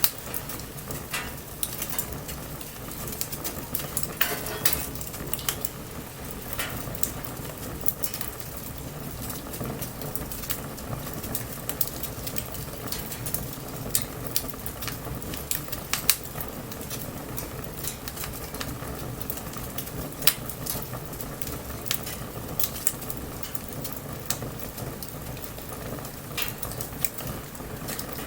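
Wood fire burning: a steady crackle broken by frequent sharp pops and snaps, with a couple of short hisses.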